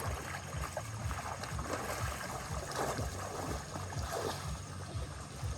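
Water sloshing and rushing, with irregular low rumbling buffets of wind on the microphone.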